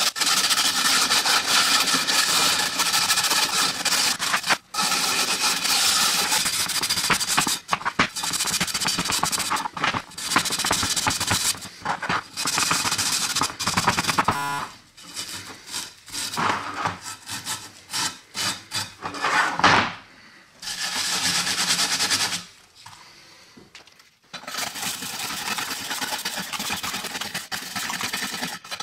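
Steel wool and then a stiff wire brush scrubbing a metal sign wet with paint stripper, a harsh rasping scrub in long bursts broken by short pauses.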